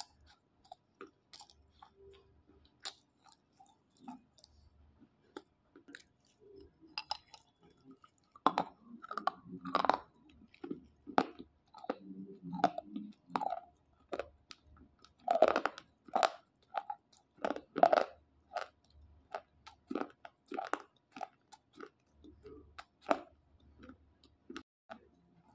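Dry slate pencils being bitten and chewed: a run of sharp crunches, sparse at first, coming thick and loud through the middle, then thinning out again.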